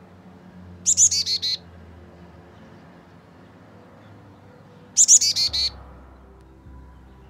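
Young chickadee calling twice, about four seconds apart: each call is a quick, high run of several notes that steps down in pitch.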